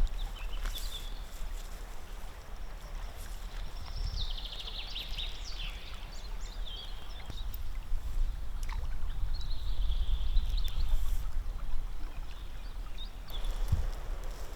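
A river flowing with a steady low rush. A few clusters of high, falling chirps sound over it, about four and ten seconds in.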